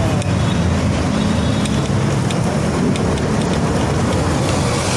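Steady road and traffic noise with a low rumble, with a few faint ticks.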